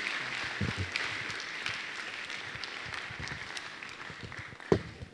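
Congregation applauding, the clapping slowly dying away, with a sharp loud thump near the end.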